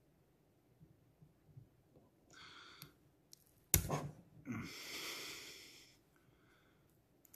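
A person breathing hard through the nose, a sniff and then a long wheezy exhale, over small clicks of a pick and a piston-pin circlip being worked into a chainsaw piston. A single sharp click just under four seconds in is the loudest sound.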